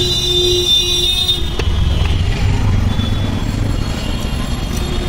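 Road traffic noise, with a vehicle horn sounding for about a second and a half at the start.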